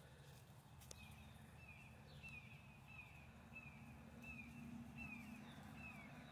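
Faint bird calling a steady series of short, falling chirps, about two a second, starting about a second in, over a low steady hum.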